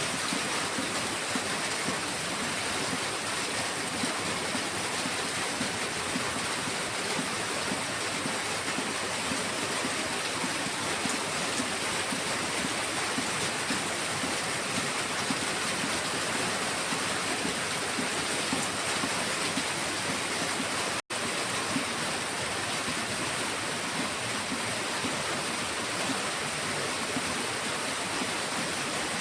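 Heavy rain falling steadily, an even hiss with no let-up. It cuts out for an instant about two-thirds of the way through.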